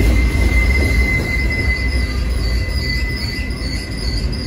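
Freight train's covered hopper cars rolling past with a low rumble. A steady, high wheel squeal holds throughout, with a fainter, wavering squeal above it.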